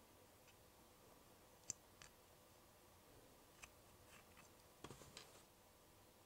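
A few light clicks of a thin metal pin and wooden sticks against a small plastic candy mold as it is handled, the pin working the set candy loose around the sticks. One sharp click comes under two seconds in, and a quick cluster of clicks comes about five seconds in.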